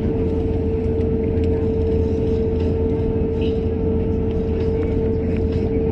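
Airliner cabin noise: the aircraft's steady engine and air drone, a low rumble with one constant humming tone over it.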